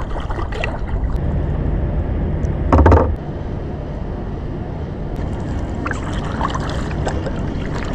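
Paddling a Current Designs Solstice sea kayak: water splashing and lapping at the hull and paddle blades over a steady low rumble, with one louder splash about three seconds in.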